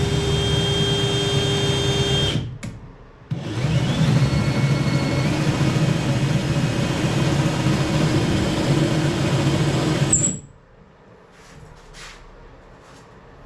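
Electric drill boring through a canoe's wooden gunwale. It runs for about two seconds, stops briefly, then runs again for about seven seconds before cutting off. A few light knocks follow.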